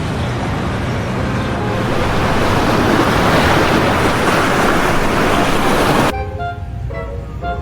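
Loud, steady rushing noise of floodwater pouring through, cutting off abruptly about six seconds in, when background music takes over.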